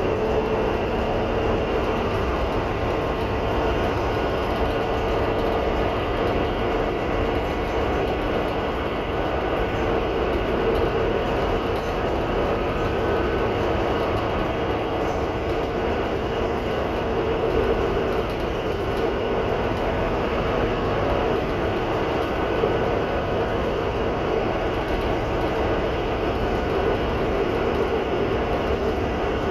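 Cabin sound of a 2021 Gillig Low Floor transit bus running: a steady drone from its Cummins L9 diesel and Voith D864.6 automatic transmission, with a steady whine held at one pitch over the rumble.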